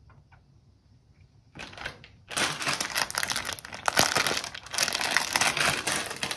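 Plastic sweets packet, a bag of Milkybar Mini Eggs, crinkling as it is handled. A few faint ticks come first; the crinkling starts about a second and a half in and is loud from about two seconds in.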